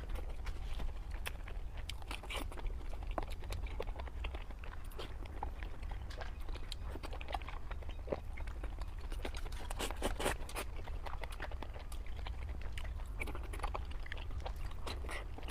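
Close-miked eating sounds: a person chewing food, with irregular crunches and small wet clicks, over a steady low hum.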